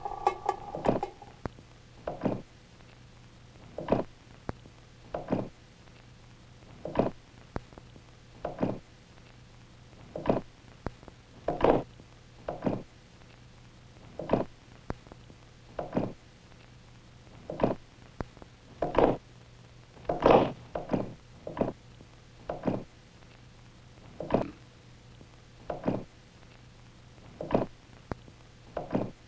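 Slow piston-engine strokes: dull knocking thuds about once every one and a half seconds, over a faint steady low hum. A closing burst of music fades out about a second in.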